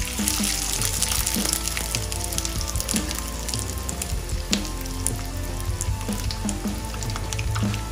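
A giant spring roll in a mesh rice-paper wrapper sizzling steadily as it fries in hot oil in a frying pan.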